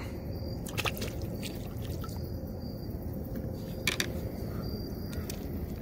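Light water sounds as a baby striped bass is released into the lake from a kayak. Two short clicks sound about one second and four seconds in, over a steady low rumble.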